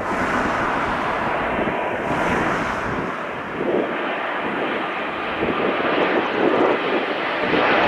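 Airbus A380 on its landing approach: its four turbofan engines make a steady rushing jet noise.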